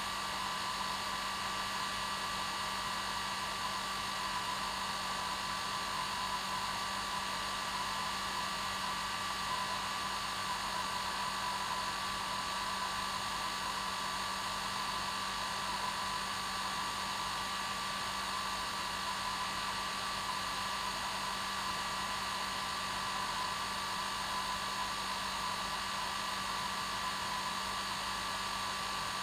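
Hair dryer running steadily at one setting, a constant rush of air with a steady motor whine and low hum.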